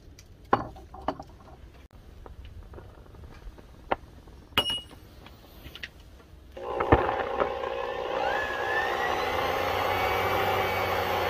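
A few sharp metallic knocks as steel bearing outer races are handled on a shelf. About six and a half seconds in, a steady whirring rush with humming tones starts: an air blower forcing air into a charcoal forge, fanning the coals around a piece of bearing race.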